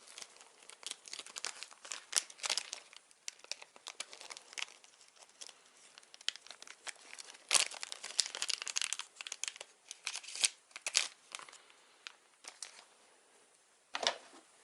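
Plastic packaging crinkling and rustling in the hands, in irregular bursts with sharp crackles, and a single heavier knock near the end.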